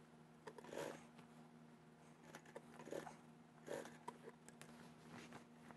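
Near silence: a few faint rustles of mink fur and lining being handled, over a low steady hum.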